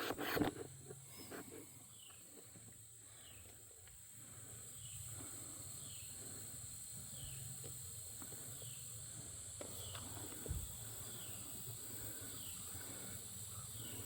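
Rural outdoor ambience: a steady high insect drone, with a short falling chirp repeating about once a second. A single faint thump sounds about ten and a half seconds in.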